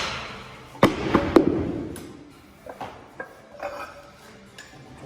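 Iron weight plates being loaded for an anvil lift, clanking metal on metal. Two or three hard clanks come about a second in with a short ringing tail, followed by a few lighter knocks.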